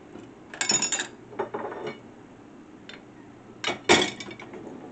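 Dishes clinking and clattering in a dishwasher's wire rack as a glass and bowls are loaded: a burst of clinks about a second in, lighter ones after, and the loudest knocks near the end.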